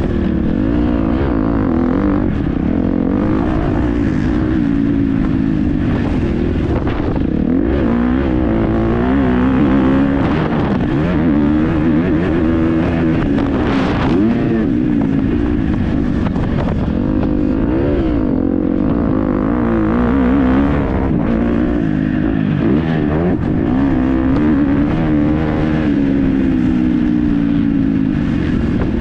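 KTM 250 SX-F single-cylinder four-stroke motocross bike ridden around a track: the engine revs up and down continuously, its pitch rising and falling with throttle and gear changes.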